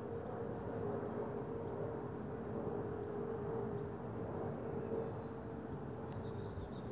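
Steady outdoor rumble with a low hum running under it, a few faint high chirps, and a single sharp click about six seconds in.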